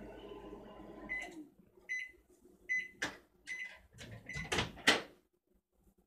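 A Panasonic microwave oven running with a low hum stops about a second in and gives four short, evenly spaced beeps, the signal that the heating cycle has finished. Its door is then unlatched and opened with a few sharp clicks and knocks, the loudest near the end.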